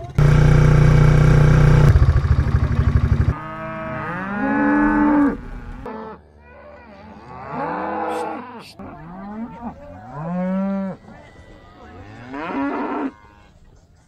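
A loud engine runs steadily for about the first three seconds, then cattle moo, about four long calls that each rise and fall in pitch.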